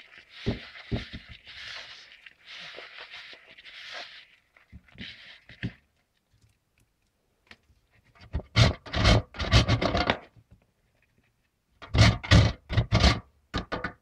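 Hand rummaging through fine grated soap flakes in a plastic bowl, a soft rustling hiss. Then a metal box grater scrapes and knocks against the bowl in two quick runs of sharp strokes, about two seconds apart, the loudest sounds here.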